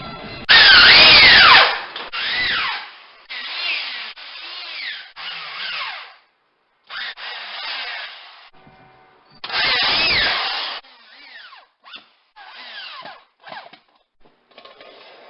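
Power drill driving screws in a series of short bursts, the motor pitch rising and falling within each burst; the loudest bursts come about half a second in and about ten seconds in.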